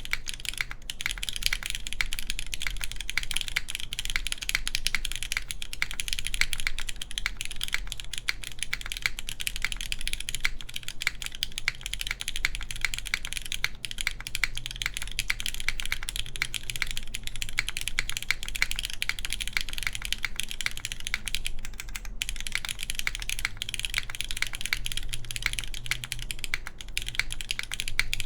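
Continuous fast typing on a gasket-mounted mechanical keyboard with lubed Cherry MX Black linear switches, an aluminium plate and GMK keycaps: a dense run of clacky keystrokes with a slightly boomy low thump.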